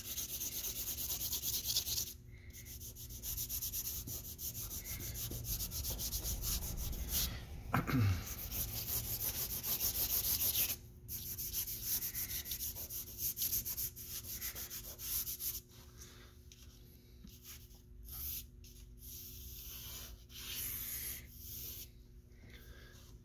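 Vine charcoal rubbing and scratching across drawing paper in rapid back-and-forth shading strokes, with short pauses. The strokes grow fainter in the second half.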